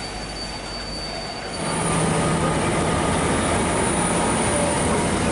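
LMS Stanier Black 5 steam locomotive No. 45212 and its train at a station: a steady rumble of the train. About a second and a half in it gets louder and close, with a steady high steam hiss from the locomotive over a low hum.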